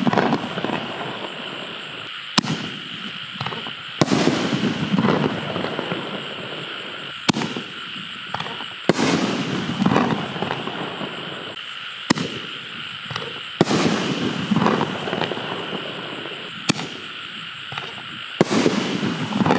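Aerial canister shells firing in a string: about eight sharp reports a second and a half to three seconds apart, each followed by a spell of crackling.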